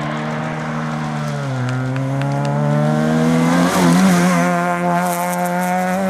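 Rally car's engine held at high revs while the car drives past on a gravel road. The note drops about a second and a half in, wavers around four seconds in, then runs steadily high, with gravel crackling under the tyres near the end.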